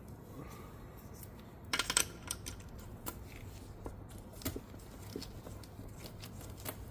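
Light metallic clicks and clinks of manual-transmission parts (bearing, gears, shaft) being handled and fitted back on, with a short cluster of louder clicks about two seconds in.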